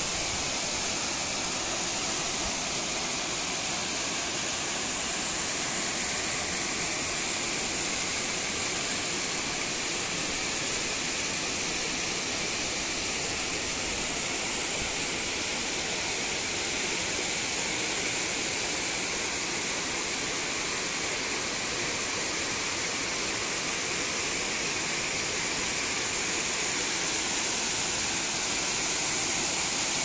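Mountain waterfall pouring down over rock: a steady, even rush of water with no change in level.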